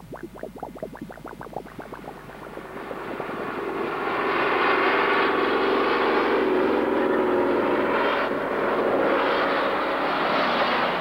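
Quickening pulsed engine beats give way, from about two seconds in, to a truck engine swelling up to loud, steady running at full throttle under load. It cuts off suddenly at the end.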